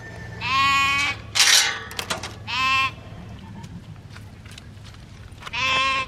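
Sheep bleating: three wavering calls, one about half a second in, one about two and a half seconds in, and one near the end. About a second and a half in comes a short, loud, noisy burst, followed by a few light clicks.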